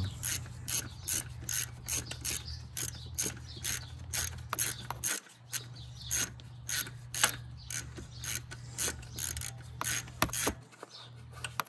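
Hand ratchet and socket clicking as it drives a thermostat housing bolt that is not going in easily, about three clicks a second with short pauses between strokes.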